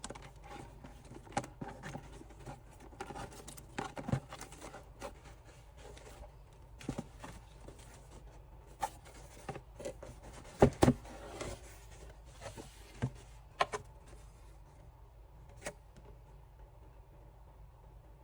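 Hands unpacking a gift package: rustling and crinkling of paper and wrapping, with scattered clicks and light knocks. The loudest are two knocks close together about eleven seconds in; the handling dies down over the last few seconds.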